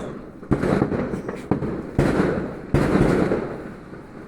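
Fireworks going off: about four sharp bangs in quick succession, each trailing off in a rumble that fades before the next.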